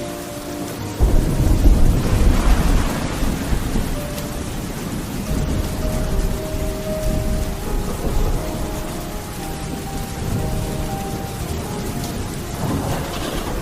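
Steady rain falling, with a roll of thunder that breaks in suddenly about a second in and rumbles for several seconds, and a smaller swell of rumble near the end.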